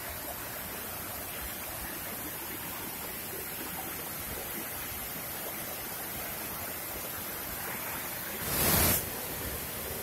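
Fast stream rushing over rocks, a steady wash of water noise. Near the end, a loud rush of noise lasting about half a second, the loudest thing here.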